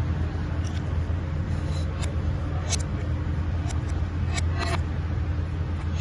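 Steady low mechanical hum with a few scattered short metallic clicks and clinks, typical of hand tools working on bolts.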